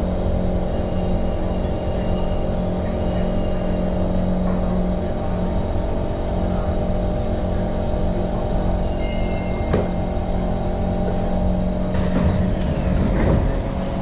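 Singapore MRT train running, a steady rumble and low hum under the carriage. About two seconds before the end a high whine falls in pitch, with a few clicks.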